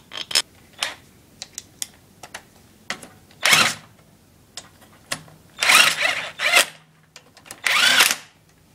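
Handheld electric drill fitted with a socket, run in four short bursts that spin up and wind down, driving bolts back into a small engine during reassembly. A few light metallic clicks come before the first burst.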